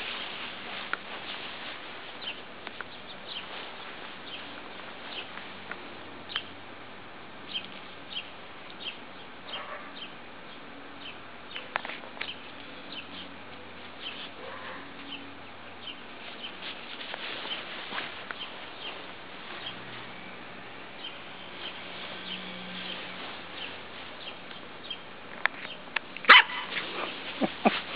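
Six-week-old puppy giving short, high yips and barks, scattered through and loudest near the end.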